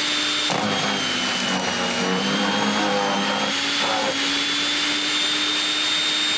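Portland electric wood chipper running with a steady motor whine. About half a second in, a branch is taken in and the motor bogs down, its pitch dropping while the blades grind through the wood for about three and a half seconds. The motor then picks back up to its steady whine.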